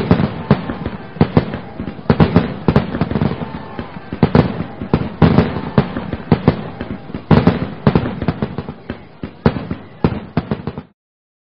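Fireworks going off: a dense, irregular string of sharp bangs and crackles, cutting off suddenly near the end.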